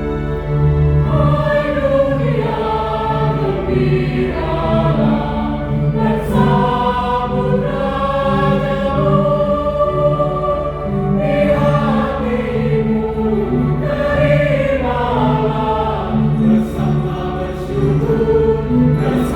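Church choir singing a Christmas hymn in parts, the voices entering about a second in over sustained low accompanying notes.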